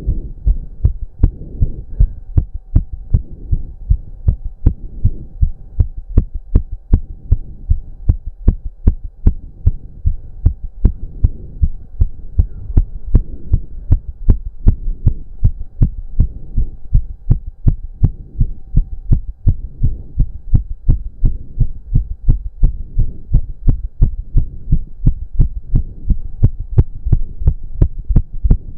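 A man's heart pounding fast with an even rhythm, raised by intense cardio exercise. A faint steady hum runs underneath.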